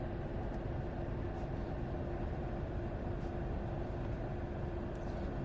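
Car driving: a steady rumble of engine and road noise with a constant low hum.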